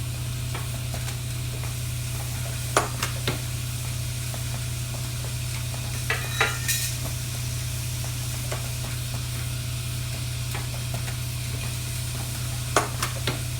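Vibratory parts feeder running with a steady low hum and a light rattle of parts. Over it, the automatic spot-welding machine's mechanism clicks and clacks in three short clusters, one of them with a brief hiss.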